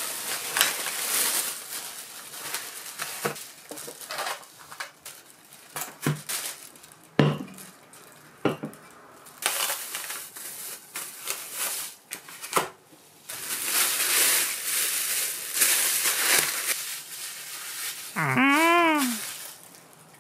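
Thin plastic shopping bags rustling and crinkling as groceries are taken out, with several sharp knocks of packs and cans set down on a wooden table. Near the end comes a single drawn-out rising-and-falling call.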